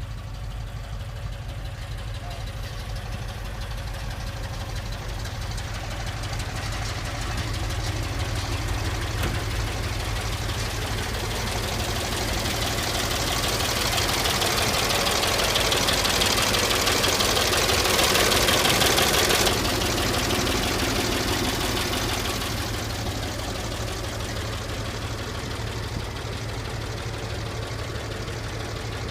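1970 International 2010A grain truck's IHC six-cylinder gasoline engine idling steadily. The sound swells louder about two-thirds of the way through, drops back sharply, then settles.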